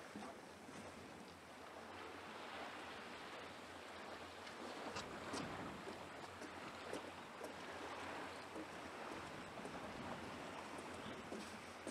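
Steady seaside wind with small waves washing below, an even rushing hiss, with a few faint short knocks about the middle.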